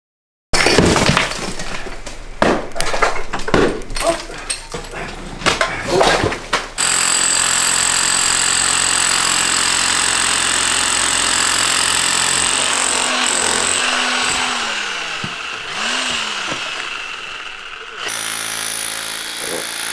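Electric demolition hammer chiselling through a concrete cinder-block foundation wall. It comes in short bursts with knocks for the first several seconds, then hammers steadily.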